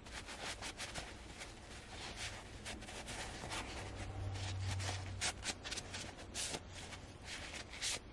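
Rubbing and crinkling of a paper shop towel as gloved hands wipe the black residue off a steel punch: a run of short, irregular swishes.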